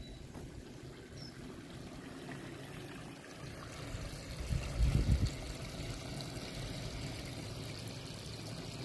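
Spring water trickling and running through the stone basins of a holy well. About halfway through, a gust of wind buffets the microphone with a brief low rumble.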